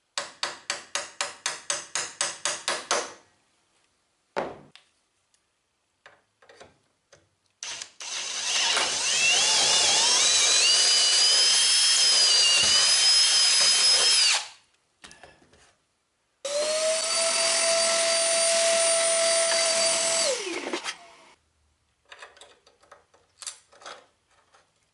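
Cordless drill boring a 5/16-inch hole down into wooden water-wheel spokes, in two long runs: it spins up with a slightly rising whine and runs steadily, and the second run winds down with a falling pitch. Before the drilling there are about three seconds of quick, evenly spaced knocks, about five a second, and near the end small light clicks of metal hardware being handled.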